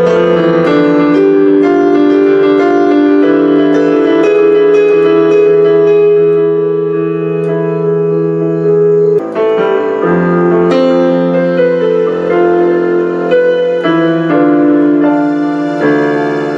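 Piano music: slow held chords with single notes struck over them, starting abruptly.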